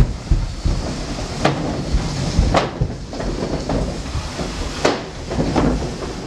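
A door being moved and shut, giving a few sharp knocks and clacks; the loudest come about two and a half and five seconds in, over a steady low rumble.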